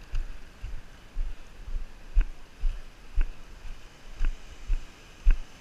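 Water lapping and wind buffeting the microphone with irregular deep thumps, and a few short, light knocks about once a second in the second half.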